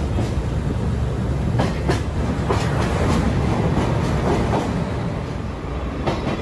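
Sagano sightseeing trolley train's open-sided passenger car rumbling steadily along the track, heard from inside the car with no windows between. Several sharp clacks from the wheels over the rail joints come in the first half, and one more comes near the end.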